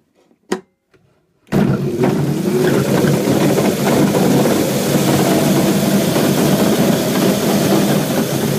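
After a short click, a motor starts abruptly about a second and a half in and drives a belt-and-pulley train of gears and flywheels, running loud and steady with a low hum under a wide mechanical whir.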